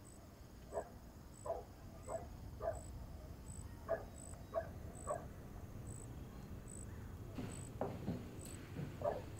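Footsteps coming down a staircase and across the floor, about one and a half steps a second, with a few heavier knocks near the end. A faint high chirp repeats steadily about every two-thirds of a second throughout.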